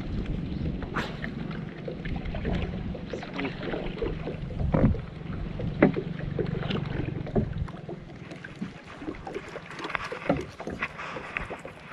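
Water lapping against the hull of a small boat, with wind on the microphone and scattered light knocks and clicks.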